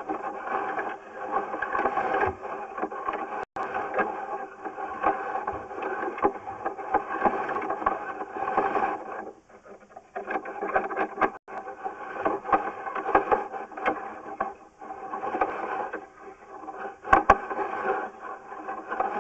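Sewer inspection camera's push cable being fed down a drain line, squealing and scraping as it goes, with a pause about nine and a half seconds in and a few sharp clicks.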